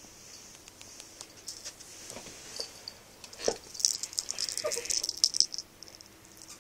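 Light clicks and rustling that build into a dense, crinkly rattle for about two seconds, with a soft thump about three and a half seconds in. This is the handling of the cat's toy frog and the jostled camera during a game of fetch.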